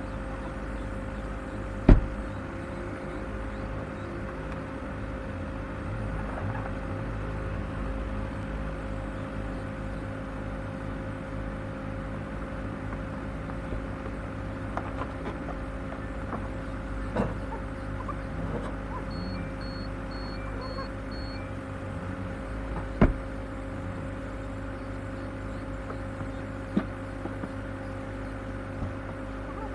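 Off-road vehicle's engine running steadily with a low rumble, with a few sharp knocks, the loudest near the start and about three quarters through. A quick run of five short high beeps comes a little past the middle.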